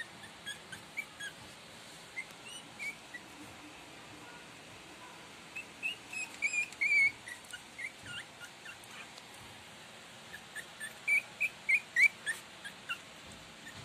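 Twenty-day-old Shih Tzu puppies squeaking and whimpering: short, high-pitched squeaks in three clusters, loudest about seven and twelve seconds in.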